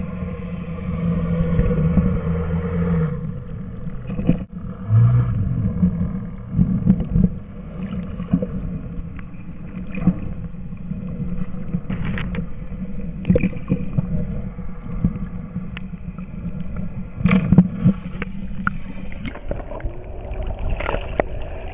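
Boat engine hum heard muffled through the water, steady and strongest in the first three seconds, then a rougher rumble with gurgling and scattered clicks and knocks. Near the end the boat's running engine and the sloshing water come through more clearly.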